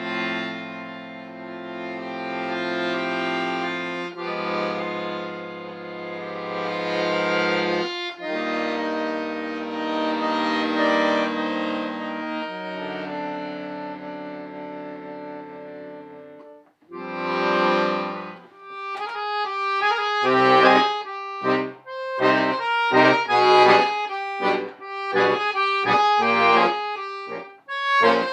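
Accordion playing: slow, sustained chords that change every few seconds for about the first sixteen seconds, then, after a brief break, a faster passage of short, detached chords.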